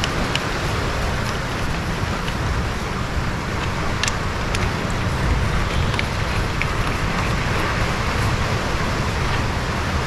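Steady rain heard from inside a workshop, a continuous hiss, with a few light metal clicks as bolts are fitted into connecting rods.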